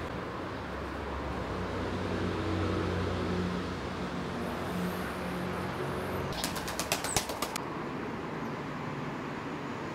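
Steady background traffic rumble with a low engine hum for the first six seconds, then a quick run of about ten sharp claps or clicks lasting about a second.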